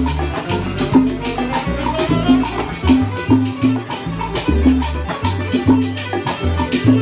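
Salsa music: a band with a stepping bass line, a repeating mid-range figure and steady hand percussion, with no voice in this stretch.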